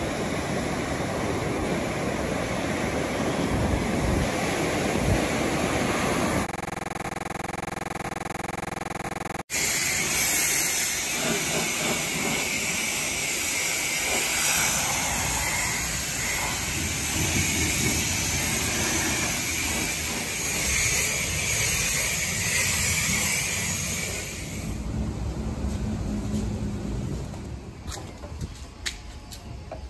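Waves breaking on a beach, then a sudden cut to a car-wash pressure-washer wand hissing as it sprays water over a car bonnet for about fifteen seconds. Near the end it stops, leaving quieter scrubbing from a foam brush.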